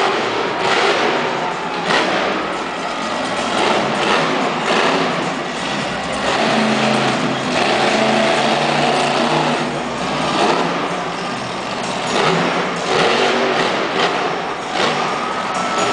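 Monster truck engine revving hard, the pitch and loudness rising and falling again and again as the truck accelerates and backs off over the jumps.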